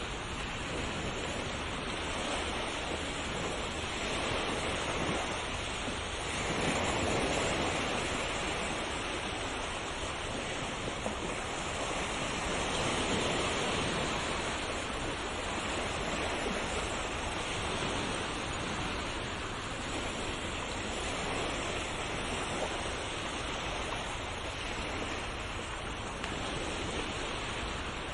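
Ocean surf: waves breaking and washing in as a steady rush of noise, swelling louder about seven seconds in and again around thirteen seconds.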